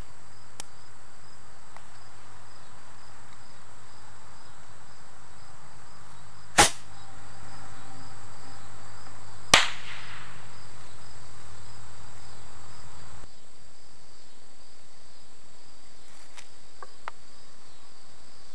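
Insects chirping steadily, with two sharp bangs about three seconds apart a third and a half of the way in. A low hum starts after the first bang and stops suddenly a few seconds after the second.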